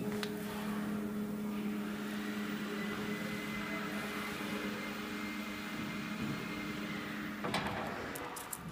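Laser cutting machine running with a steady hum of several fixed pitches, which cuts off with a click about seven and a half seconds in, followed by a few short clicks.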